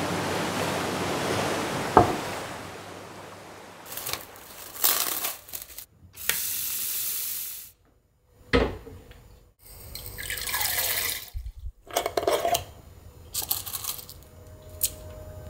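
Water running and pouring into a cooking pot in several short bursts, with a few clinks of the pot and utensils in between.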